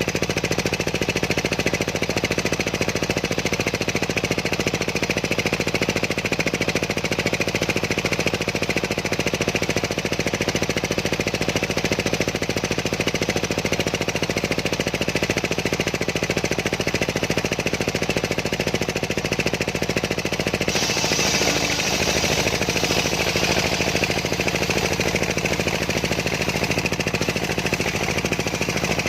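Homemade engine-driven circular sawmill running continuously with a rough, steady mechanical drone. About two-thirds of the way through its tone changes abruptly, turning brighter and hissier with less deep hum.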